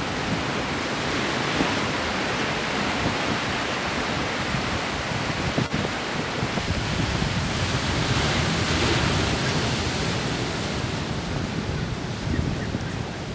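Surf breaking and washing over a rocky beach, a steady loud rushing that swells slightly about two-thirds of the way through.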